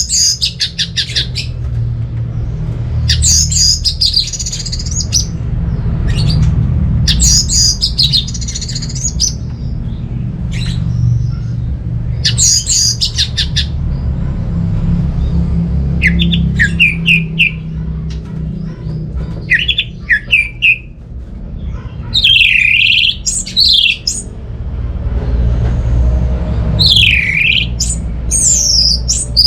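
Orange-headed thrush singing in bursts a few seconds apart: rapid runs of high, repeated notes at first, then trills and sweeping whistled notes toward the end. A steady low hum runs underneath.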